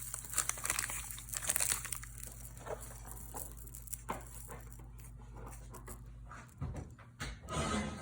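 Parchment paper crinkling and rustling as the dough on its parchment is settled into a hot cast iron pot, loudest in the first two seconds, then quieter handling with a few light clicks and some low thuds near the end.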